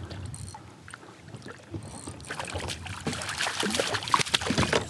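A hooked crappie splashing and thrashing at the water's surface beside a kayak as it is drawn to the landing net. The splashing gets going about halfway through as a quick run of sharp, irregular splashes that grows louder toward the end.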